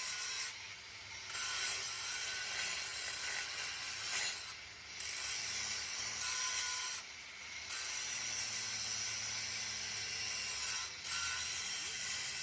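Metalworking noise: a steady, high rasping and scraping that stops briefly four times, about a second in, around the middle, past halfway and near the end.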